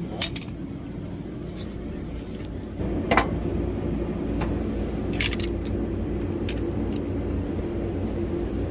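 A machine runs with a steady low hum that steps up louder about three seconds in, with a few sharp metallic clinks and knocks over it.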